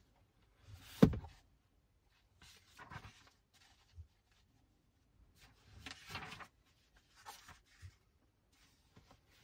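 Pages of a hardcover book being riffled and turned by hand, in short bouts of paper rustling, with a single sharp thump about a second in.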